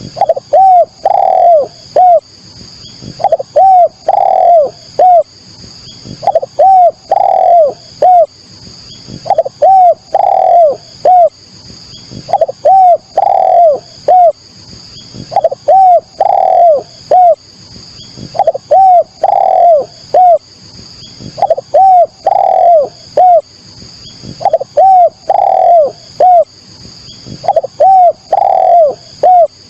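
Spotted dove (derkuku, tekukur) cooing: a loud phrase of three or four arching coo notes, repeated about every two seconds.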